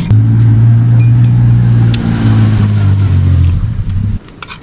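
A loud, low, steady motor drone that sags slightly in pitch and cuts off suddenly about four seconds in.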